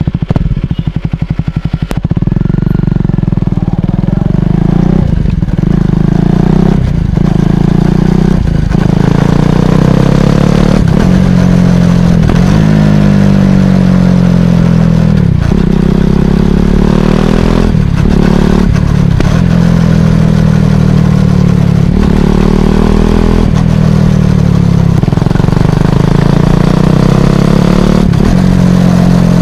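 KTM Duke 250 single-cylinder engine's exhaust heard close up while riding, its pitch rising and falling. Brief breaks every second or two carry quick throttle blips for rev-matched downshifts.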